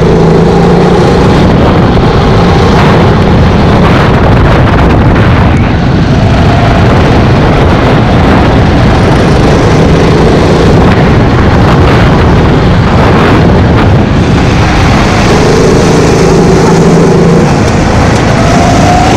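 Go-kart engine running loud under throttle, heard from the driver's seat over wind rushing on the microphone. The engine note fades through the middle and comes back strongly near the end.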